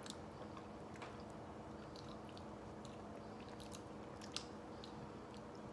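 Quiet mouth sounds of people eating ice cream off spoons: scattered soft smacks and small clicks, one a little louder about four seconds in, over a faint steady hum.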